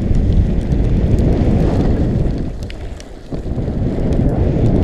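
Off-road vehicle running along a wet dirt trail: a dense engine and tyre rumble with wind buffeting the microphone and scattered small ticks. The rumble eases off for a moment about three seconds in, then comes back.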